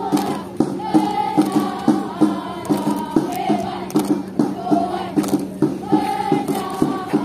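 A crowd of voices chanting and singing a cheer together in a melodic line, over a steady beat of about three knocks a second.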